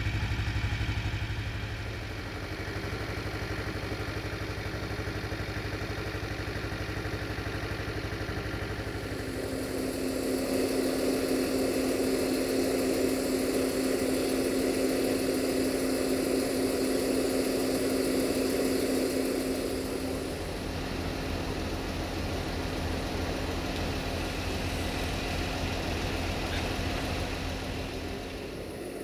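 CFR class 64 diesel-electric locomotive idling with its train standing, a steady engine hum. About a third of the way in a louder steady tone and a hiss join it, then ease back a little past the middle.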